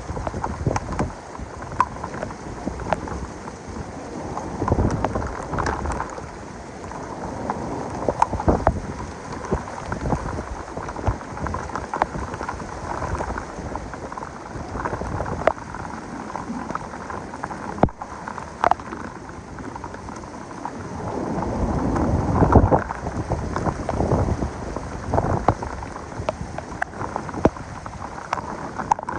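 Heavy thunderstorm: a steady downpour with many sharp drop hits close by, and low thunder rumbling in swells, the strongest about twenty-two seconds in.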